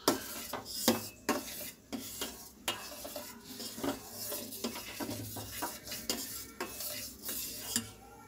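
A metal spoon stirring milk in a steel pot, knocking and scraping against the pot's sides and bottom, about one or two knocks a second. The milk is splitting into chhena and whey after lemon juice was added.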